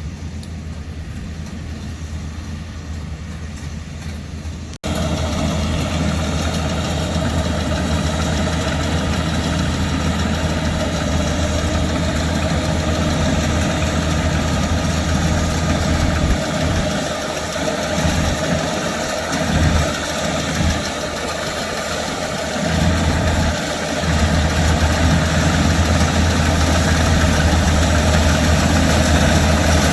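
LS MC85 combine harvester running steadily, its engine and machinery making a constant hum. It gets suddenly louder about five seconds in, and the low rumble dips and returns several times in the second half.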